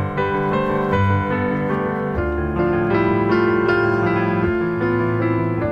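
Background piano music, a steady run of sustained notes and chords.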